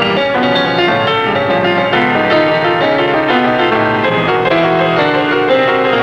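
Piano music playing a busy, unbroken run of notes, as silent-film accompaniment.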